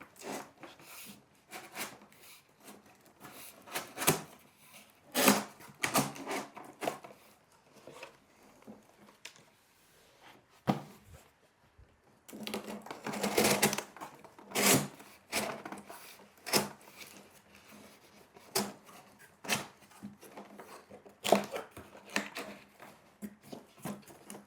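Corrugated cardboard shelf panels being handled and pushed through cutouts: irregular taps, knocks and scraping of cardboard, busier for a couple of seconds about halfway through.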